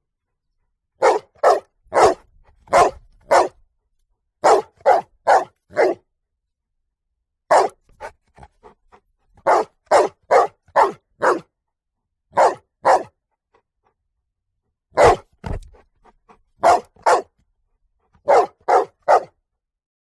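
A dog barking in quick bursts of two to four sharp barks, with pauses of a second or two between the bursts.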